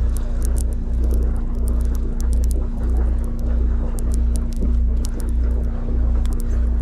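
Boat engine running: a steady low rumble that swells and dips about twice a second, with a constant hum. Scattered light clicks sound over it.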